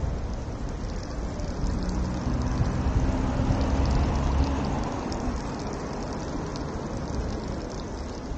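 Street traffic: a vehicle's engine rumble swells and passes, loudest about three to four seconds in, over a steady hiss.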